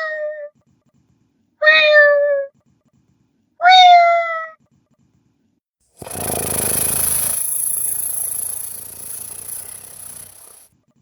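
A person imitating a cat with their voice: the end of one meow, then two more meows about two seconds apart, each under a second long and dropping in pitch. After a pause comes a long, rough, hissing sound that fades out.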